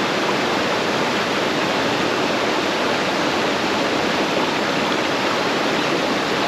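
Creek water rushing steadily over rocks, a constant even wash of noise.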